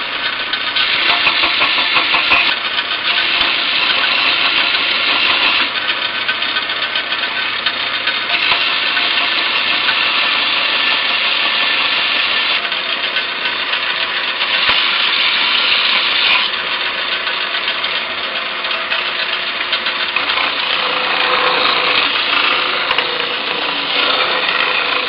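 Belt sander running steadily while sanding dried wood filler off a plywood jigsaw puzzle. The sound grows louder and softer in stretches of a few seconds.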